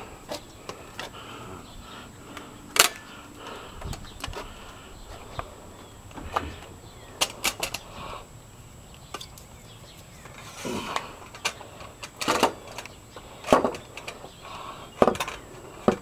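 Roller stands being set up and adjusted beside a chop saw: irregular sharp clicks and knocks, a few in quick clusters, with no machine running.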